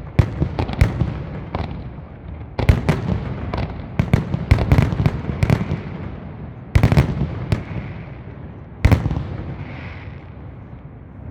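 Aerial fireworks display: shells bursting in loud, sharp bangs that come in quick clusters with gaps of a second or two between them, over a continuous low rumble of echoing reports.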